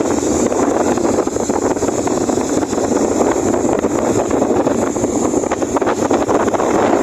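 Venti-Delta 60 cm oscillating wall fan running, its airflow buffeting the microphone as a steady rushing noise.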